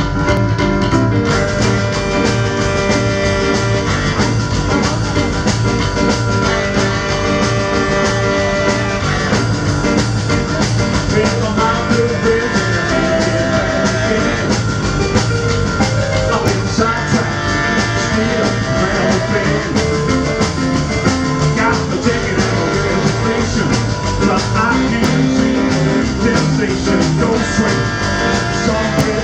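Live band playing a rock and roll number: saxophones, Kurzweil stage piano, upright bass and drums, with a male singer on a hand microphone.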